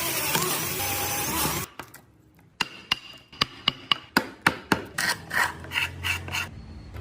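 Wood-carving tools at work: a loud, steady grinding or rasping noise for about the first second and a half, cut off suddenly. After a short pause comes a run of quick, irregular sharp hammer taps on carving tools in wood, some of them ringing.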